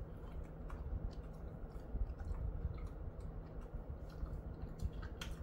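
Jindo-mix dog slowly chewing a snack: faint, irregular clicks and crunches, a little louder about five seconds in, over a low steady hum.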